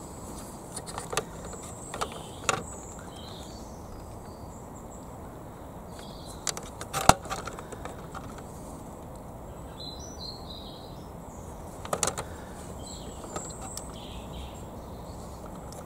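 Scattered light clicks and taps of a metal set square being handled against a hard plastic toy excavator arm, the sharpest about seven seconds in. Faint bird chirps over steady outdoor background noise.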